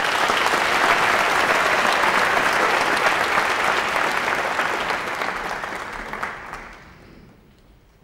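Audience applauding loudly, then dying away about seven seconds in.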